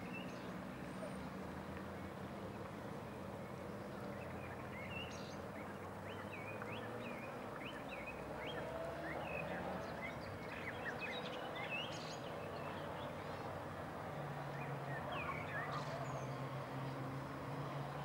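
Many small songbirds chirping and twittering over a steady low engine hum.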